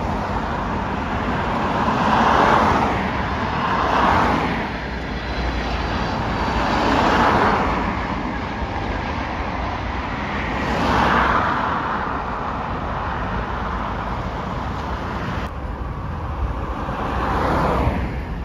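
Road traffic passing one vehicle at a time, each a swelling and fading swoosh of tyres and engine, five passes in all, over a steady low rumble from a jet airliner climbing away after take-off.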